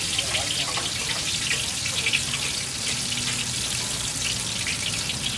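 Vegetable fritter batter deep-frying in a large wok of hot oil: a steady sizzle with many small crackling pops.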